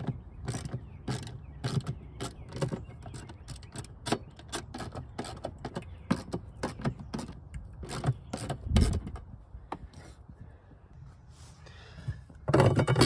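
Irregular metallic clicks and clinks of a hand tool undoing the 10 mm nuts on a car's fuel pump access cover, about two a second, with louder handling noise near the end as the cover is lifted.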